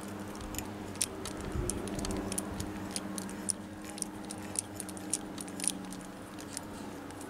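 Hand deburring tool scraping and clicking in a freshly drilled hole in a chrome steel handlebar: a run of small, irregular metallic clicks, over a steady low hum.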